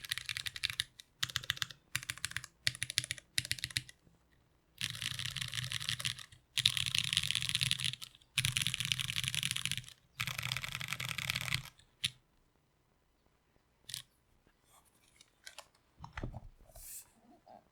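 Typing on an Iron165 R2 gasket-mount 65% keyboard with Krytox-lubed Cherry MX Brown switches, an aluminium plate and GMK keycaps: short bursts of keystrokes, then long runs of rapid presses on the home-row keys. About twelve seconds in the typing stops, leaving only a few faint clicks and knocks as the board is handled.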